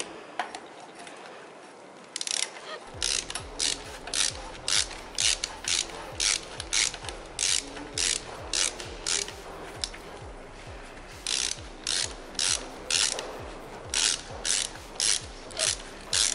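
Hand ratchet with a 12 mm socket on an extension clicking stroke after stroke, about two clicks a second, as it loosens an exhaust header nut; the clicking starts about two seconds in and pauses briefly a little past halfway before going on.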